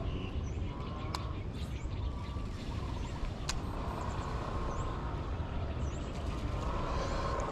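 Outdoor ambience: a steady low rumble with faint bird chirps over it, a single sharp click about three and a half seconds in, and a faint steady hum that comes in about four seconds in.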